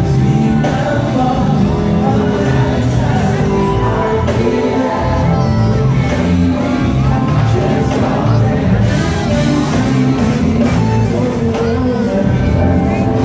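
A live band plays with a singer on a mic, heard loud and steady from the crowd of a large hall, with audience members shouting along over the music.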